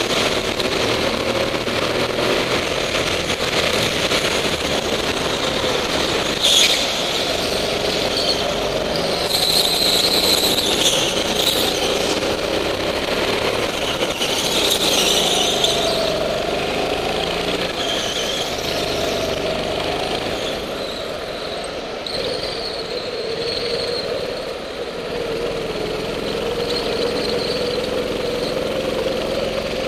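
Go-kart engine running hard, its note rising and falling with speed, while the tyres squeal in the corners, most loudly in two stretches about a third and a half of the way through.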